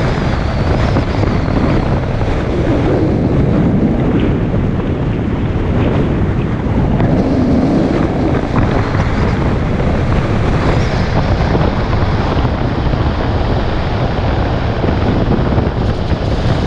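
Wind buffeting the microphone of a camera mounted on the outside of a moving car, over steady road and tyre noise.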